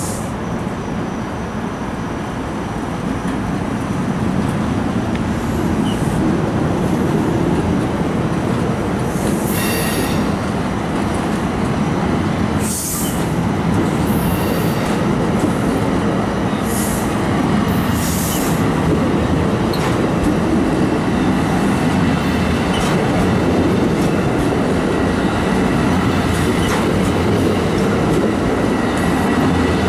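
New Jersey Transit MultiLevel bilevel passenger coaches rolling past, their wheels rumbling steadily on the rails, with short high-pitched wheel squeals about seven times.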